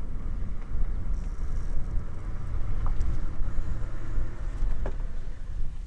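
Wind buffeting the microphone: a low, gusty rumbling rush.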